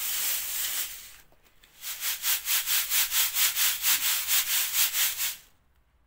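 Boiled, dried wheat grain rustling in a wooden-rimmed wire-mesh sieve (kalbur). First comes a steady rustle as hands rub through the grain; then, after a short pause, the sieve is shaken in a quick rhythm of about four swishes a second. This is sifting the grain to shake out seeds and grit.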